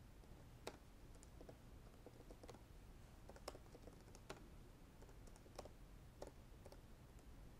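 Faint typing on a computer keyboard: single keystroke clicks at an uneven pace.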